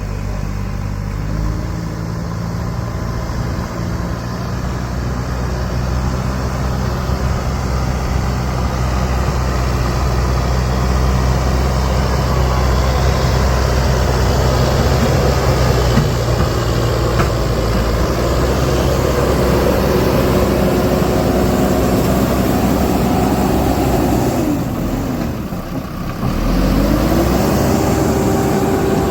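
A motor vehicle's engine runs steadily. Near the end it drops briefly, then its pitch rises as it revs up again.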